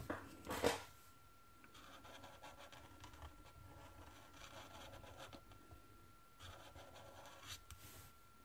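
Marker pen nib scratching faintly on paper as a line is drawn, with a short louder scuff about half a second in.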